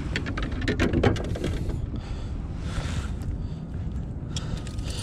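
Scattered clicks and light knocks from a freshly landed bass being handled on a plastic fishing kayak deck, thickest in the first second and again near the end, over a steady low rumble.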